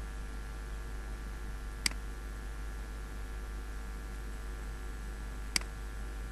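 Two computer mouse clicks, about four seconds apart, over a steady low electrical hum.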